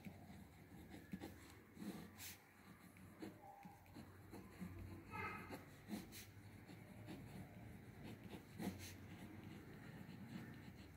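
Faint scratching of a ballpoint pen writing on paper, with a few light clicks along the way.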